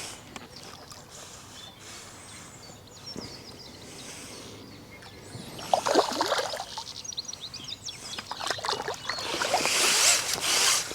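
A small fish splashing and thrashing at the water's surface as it is drawn in on a pole and netted, a run of irregular splashes starting about halfway through and growing louder toward the end.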